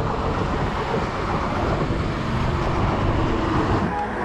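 Steady rushing wind noise on the camera's microphone, mixed with road rumble, as a mountain bike rolls down a paved road.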